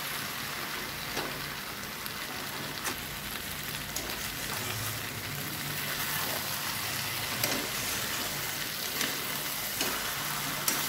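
Taro stolon and shrimp curry sizzling in mustard oil over a raised gas flame as its last liquid cooks off, with a few clicks of a spatula against the pan as it is stirred.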